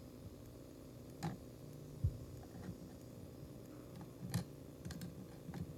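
Scattered light clicks and taps of small electronic parts and a circuit board being handled on a workbench, about six irregular ticks spread through the few seconds.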